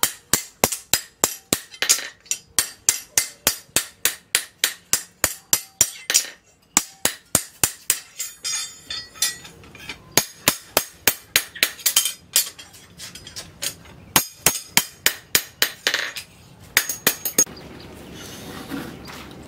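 Hand hammer striking a forked steel knife blade on a post anvil, forging it: sharp metallic blows at about three a second, with a brief pause about six seconds in. The hammering stops near the end, leaving a faint steady background.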